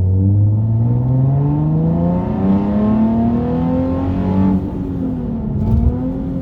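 Nissan 370Z's 3.7-litre V6 heard from inside the cabin with the windows up, the catalytic converter still fitted. The revs climb steadily under acceleration for about four and a half seconds, then fall away, with a brief swell near the end.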